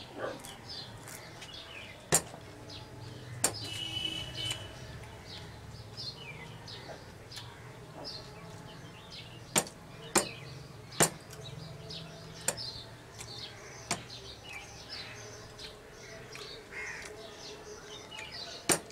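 Birds chirping repeatedly in the background, with sharp clicks and smacks from eating rice and fish by hand off a steel plate, about eight of them, the loudest near the end.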